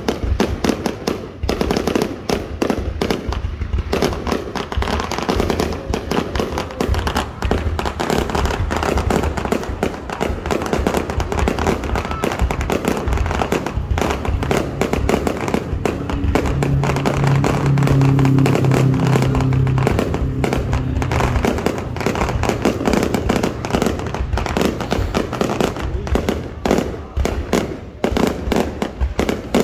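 Fireworks display: rapid, overlapping bangs and crackles of bursting shells, many a second, without a pause. A steady low tone comes in past the middle and holds for about four seconds.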